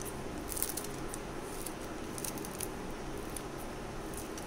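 Light scattered clicks and ticks over a steady low room hum, as a spoon sprinkles chopped green chillies and sesame seeds onto a bowl of curry.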